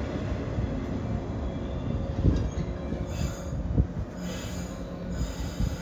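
JR 113-series electric train slowing as it pulls into the platform: a steady low rumble of wheels on rail with a couple of knocks. A high squeal rises from about three seconds in as it brakes toward a stop.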